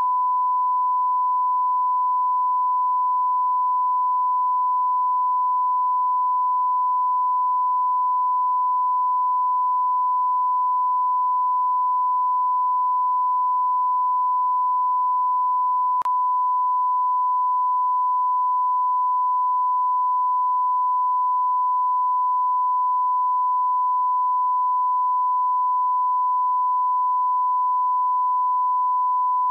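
Continuous 1 kHz sine-wave test tone, one steady pure pitch: the reference line-up tone that accompanies a broadcast test card.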